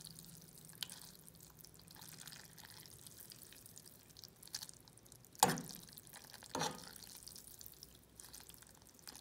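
Ramen noodles being stirred in a pan over the heat, with a faint, steady sizzle. A utensil knocks against the pan a few times, loudest a little past halfway and again about a second later.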